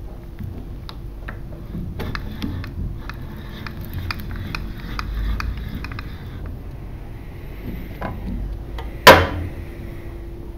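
Small metallic clicks and clatter from a Boxford metalworking lathe's slides and handwheels being handled, coming thickly through the first six seconds over a faint steady hum. A single sharp, loud knock comes about nine seconds in.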